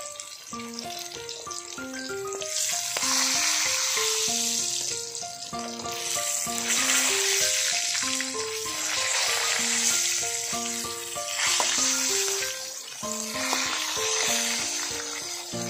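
Fish steaks sizzling as they fry in a wok, the sizzle swelling and easing in waves from about two seconds in, over background music of short, evenly paced notes.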